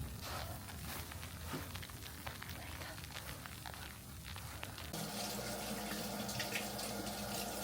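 Kitchen tap running into a sink, with light clatter. About five seconds in, a steady hum starts under the running water.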